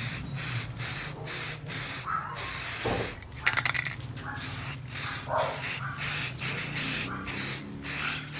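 Aerosol can of Botny rubber spray paint hissing in short repeated bursts, about two or three a second, as the nearly empty can is used up. There is a brief spell of rapid clicking about three and a half seconds in.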